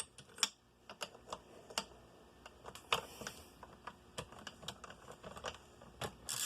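Irregular sharp clicks and ticks as bolts are tightened to draw the Yamaha YZ250's crankcase halves together. Snapping and popping like this is normal while the cases pull together.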